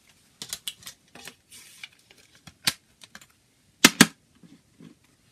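Plastic CD jewel case being handled and closed: a string of light clicks and taps, then two sharp clicks close together about four seconds in as a hand presses on the case.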